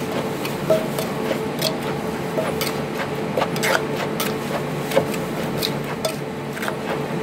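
Wooden pestle and metal spoon knocking and clinking against an earthenware mortar as sliced bamboo shoots and herbs are tossed together, irregular sharp clicks a few times a second. A steady hum runs underneath.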